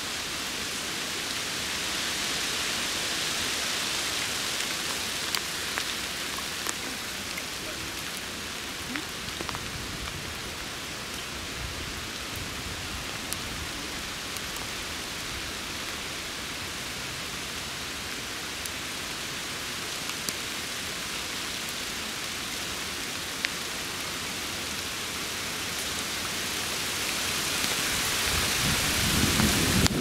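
Steady rain falling on leaves: an even hiss with scattered faint drip ticks. A low rumble swells over the last few seconds.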